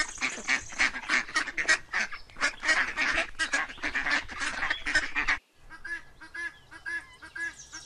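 A flock of mallard ducks quacking, many short calls crowding over one another. After a brief break about five and a half seconds in, helmeted guinea fowl take over with a fast, even run of short calls, about four or five a second.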